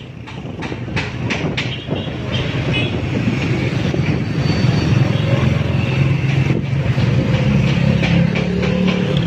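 Motor vehicle engine rumbling, steadily growing louder about four seconds in, with a few sharp clicks in the first two seconds.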